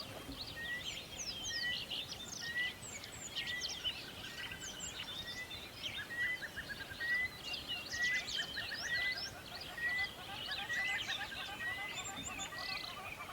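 Several birds chirping at once in a busy chorus, with one short rising note repeated steadily, somewhat under twice a second.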